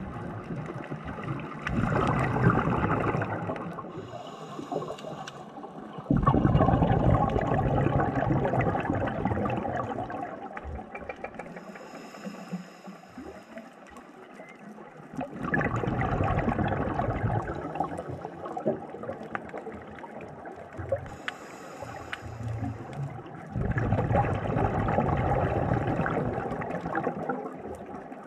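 Scuba diver breathing through a regulator underwater: four long rushes of exhaled bubbles several seconds apart, with a faint high hiss of the inhale in the quieter gaps between them.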